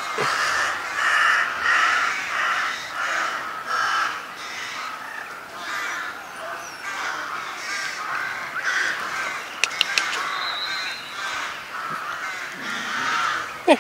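A dense run of harsh animal calls, repeating about twice a second, with a few sharp clicks about ten seconds in.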